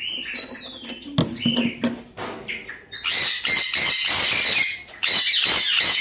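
A few knocks and clicks of a wooden nest box door being handled. Then, from about halfway, conures screeching harshly and loudly in two long stretches, with a short break just before the end.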